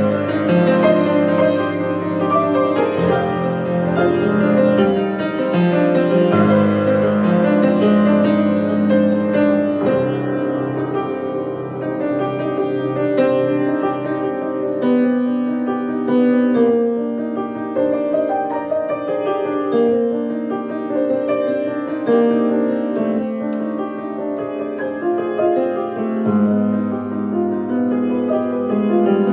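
Yamaha piano being played: a continuous, flowing piece with changing bass notes under chords and melody.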